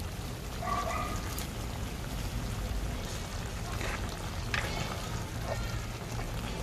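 Chicken afritada stew simmering in tomato-sauce broth in a frying pan, bubbling with a few small pops over a steady low hum.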